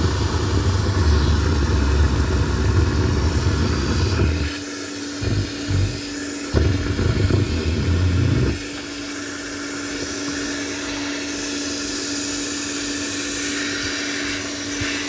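Car vacuum running with a steady motor whine and airy hiss. A heavy low rumble rides over it for the first four seconds or so and comes back in short bursts until about eight and a half seconds in, after which only the whine and hiss remain.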